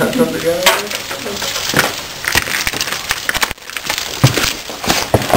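Scattered sharp clicks and snaps of airsoft guns firing and BBs striking, irregular rather than in a steady burst, with a brief voice right at the start.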